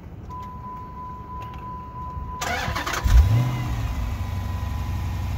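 2014 Dodge Challenger SRT8 392's 6.4-litre HEMI V8 starting. The starter cranks briefly about two and a half seconds in, then the engine catches with a quick rev flare about three seconds in and settles into a steady idle.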